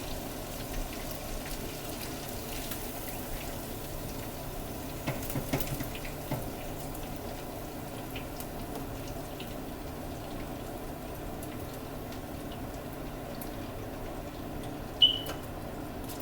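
Chicken pieces frying in a pan, a steady low sizzle with scattered faint crackles. A single short, sharp high ping sounds near the end.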